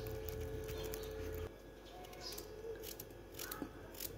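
Faint knife cuts through pumpkin held in the hand, with light taps of pieces and the blade against a steel bowl. A steady hum stops about a second and a half in.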